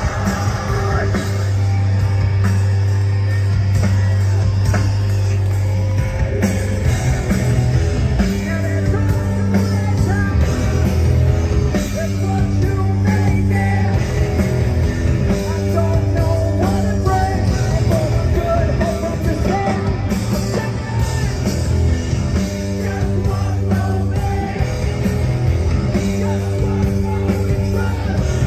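A live post-hardcore rock band plays loud through the hall's PA, heard from within the crowd: electric guitars, bass and drums, with steady bass notes that change every few seconds.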